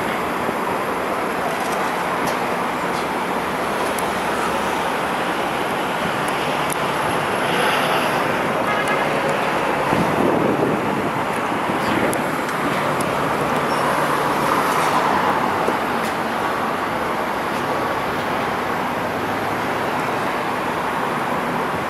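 Steady city street traffic noise: a continuous wash of passing cars that swells a little now and then.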